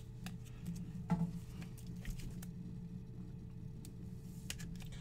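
Trading cards handled with gloved hands: scattered light clicks and rustles over a steady low hum.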